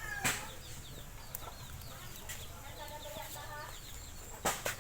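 Chickens clucking, with many short high chirps throughout and sharp knocks: one just after the start and two close together near the end.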